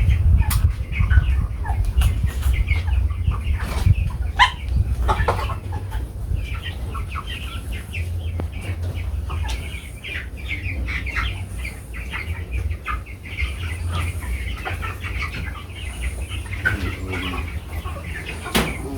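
Broiler chickens clucking continuously in a flock, over a steady low rumble.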